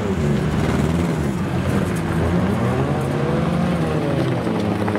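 Engines of speedway derby teams race cars running hard around a dirt track, several at once, their pitch rising and falling as they rev up and back off.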